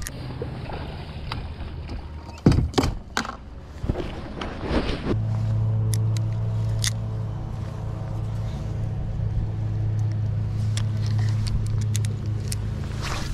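A few sharp knocks and handling thumps, the loudest about two and a half seconds in. Then, about five seconds in, a bass boat's electric trolling motor starts up and runs with a steady low hum.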